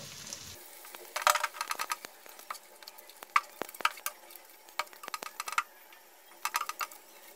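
Spatula scraping and stirring thick mustard-and-spice paste around a non-stick frying pan, in several short bursts of quick strokes over a faint sizzle, as the masala is fried down with a little water.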